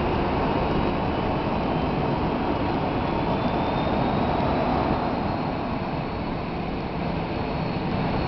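Jet airliner's engines at takeoff thrust as it climbs away: a steady rumbling jet noise, with a faint high whine rising slightly in pitch.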